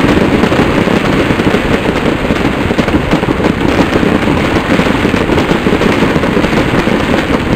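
Fireworks display: many fireworks launching and bursting at once, a dense, continuous crackle of overlapping pops and bangs with no let-up.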